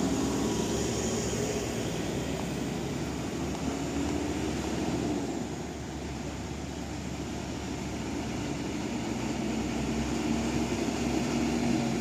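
Vehicle engines of a slow-moving convoy: a van's engine close by at first, the sound easing off around the middle, then a large truck's engine with a steady low drone growing louder as it approaches near the end.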